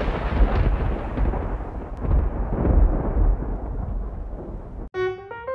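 Rolling thunder rumbling with a deep, heavy low end. It cuts off abruptly near the end, and a few sustained keyboard-like music notes begin.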